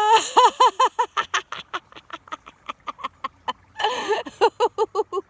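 A person laughing hard and deliberately in a laughter exercise: long runs of quick 'ha-ha-ha' pulses, about six a second. The laughter trails off around the middle and picks up loudly again about four seconds in.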